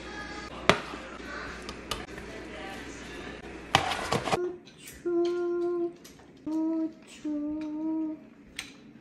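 Soft background music with a few sharp clicks and clatters, a quick cluster of them about four seconds in. Then the music stops and a voice hums three long held notes.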